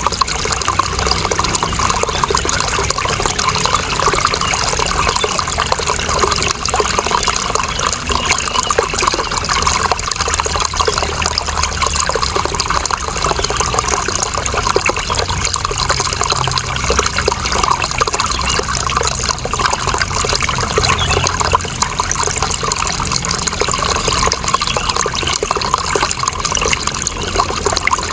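Running water flowing and trickling steadily, an even rush with no pauses.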